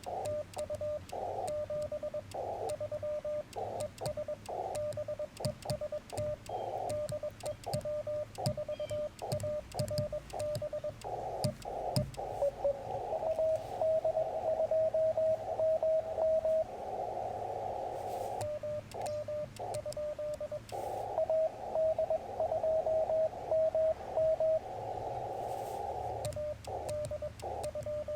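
Morse code (CW) from a Yaesu FT-891 ham radio transceiver: a single mid-pitched tone keyed on and off in dots and dashes. Twice, about halfway through and again near the end, a band of static hiss comes up with faster code heard in it.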